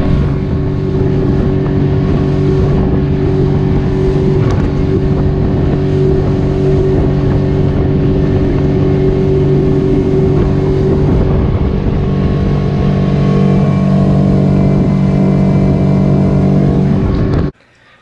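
Small fishing boat's motor running steadily at cruising speed, with water rushing along the hull. It cuts off suddenly near the end.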